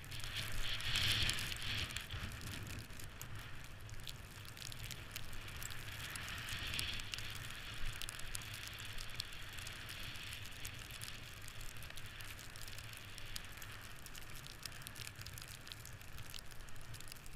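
Steady hiss of snow sliding and crunching beneath a forward-moving camera, full of irregular crackles, over a low rumble of wind on the microphone.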